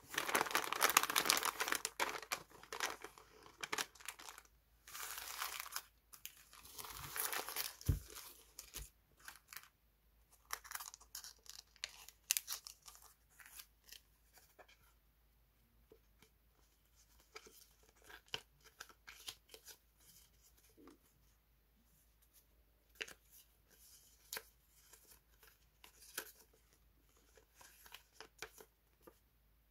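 Paper wrapping crinkling and tearing as a parcel is opened, loudest for the first eight seconds or so. After that, softer rustling and light ticks as a stack of die-cut paper stickers is handled and leafed through.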